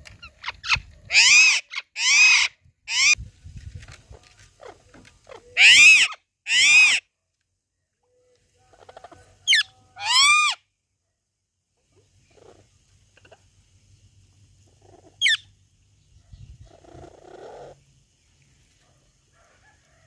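Parrots giving loud calls, each rising and falling in pitch: three in quick succession in the first few seconds, two more about six seconds in, a short call and a longer one near ten seconds, and one short sharp call about fifteen seconds in.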